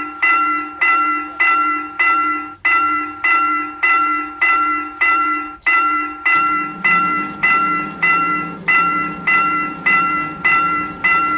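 Level crossing warning bell ringing in a steady repeating ding, a little under two strikes a second; about halfway through, the low rumble of an approaching train joins underneath.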